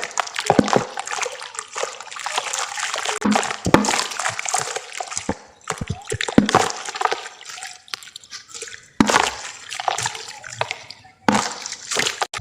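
Dry sand-cement crumbling in water: a crackling, fizzing patter of small splashes and drips, in irregular runs with brief pauses.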